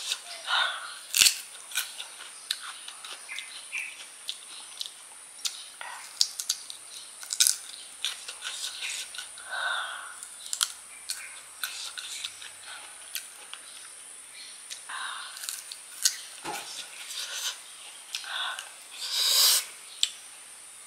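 Close-up mouth sounds of biting and chewing peeled kedondong (ambarella) fruit: crisp crunches, wet lip smacks and slurps. There is a loud crunch about a second in and another around the middle of the last third, and a longer sucking sound near the end.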